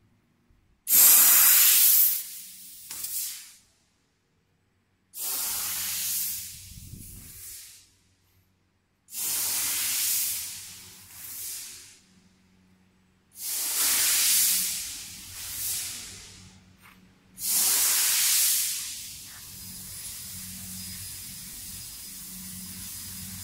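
Fiber laser tube-cutting machine's assist gas hissing from the cutting head in five sharp-starting bursts about four seconds apart, each lasting two to three seconds as the head cuts the pipe. Near the end a steady, fainter hiss with a low hum carries on.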